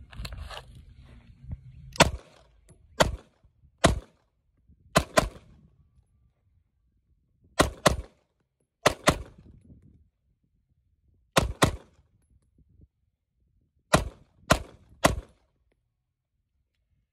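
Beretta 92FS Compact 9mm pistol firing, starting about two seconds in: single shots mixed with quick pairs a fraction of a second apart, about fourteen in all, with a pause of a couple of seconds between strings.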